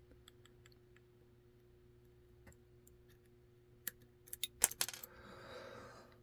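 Small metal clicks and taps of tiny lock pins and springs being handled and fitted into a Master Lock deadbolt cylinder, with a quick cluster of sharp clicks about four to five seconds in. A faint steady hum sits underneath.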